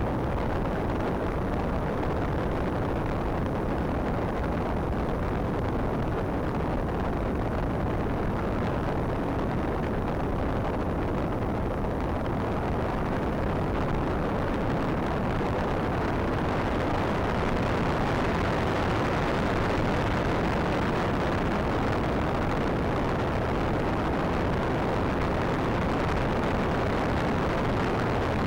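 Steady rush of wind buffeting the onboard microphone of a Bixler foam RC plane in flight, a dense roar with no clear motor tone, a little brighter in the second half.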